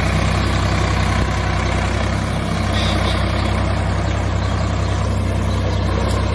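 Tractor engine running steadily at low revs: an even, low engine drone with no change in pace.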